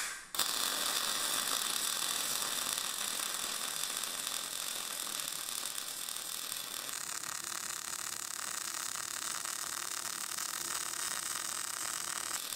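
MAG welding arc burning steadily, running round and even with no stutter: the sign that power has been raised enough for the plate thickness and the parameters fit.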